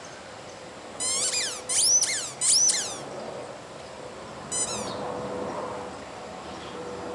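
Dog's squeaky toy being squeezed in the dog's mouth: three loud squeaks that rise and fall in pitch, about a second in, then one shorter squeak a couple of seconds later.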